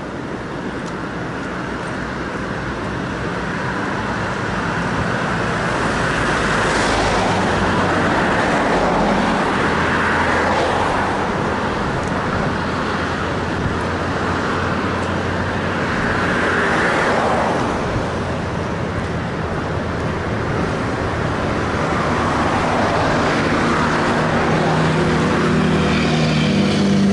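Road traffic on the bridge roadway: cars pass one after another, their tyre noise swelling and fading. Near the end, an approaching vehicle's engine note grows louder.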